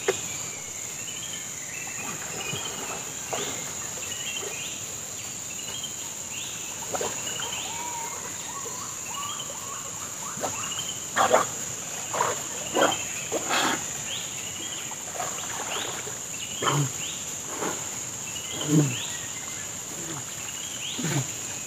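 Steady high-pitched drone of a forest insect chorus, with a small bird's short chirps repeating through the first half. From about halfway, a run of irregular splashes and sloshes of water comes through louder, as a fishing net is worked in the river.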